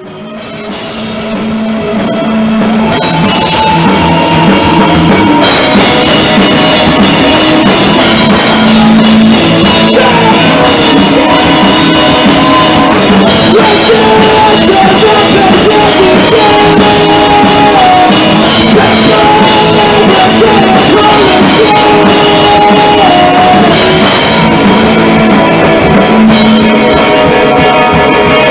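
Punk-influenced alternative rock band playing a song: drum kit with cymbals and guitars, fading in over the first few seconds.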